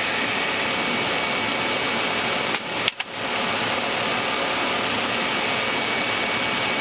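Steady rushing noise on the flight deck of an Embraer Legacy 600 on approach, with a faint high whine running through it. Just under three seconds in, it drops out briefly with a click and then comes back.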